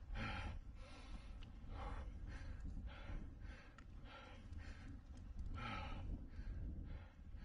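A mountain bike racer breathing hard at race effort, a forceful puff of breath about twice a second, over a steady low rumble.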